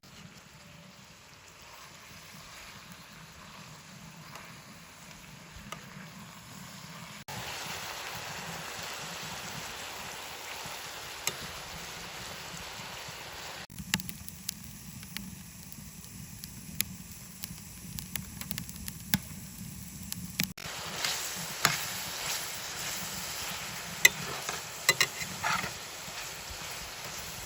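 Food sizzling as it fries in a pan, in several short clips joined by sudden cuts, with scattered light clicks and knocks of utensils.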